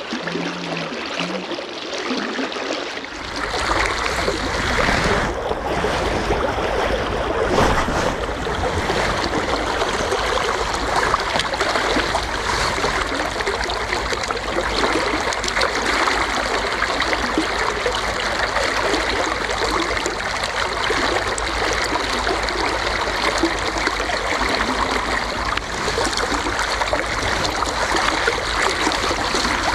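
River water flowing and rushing close by, a steady even noise, growing louder and fuller with a deep rumble about three seconds in.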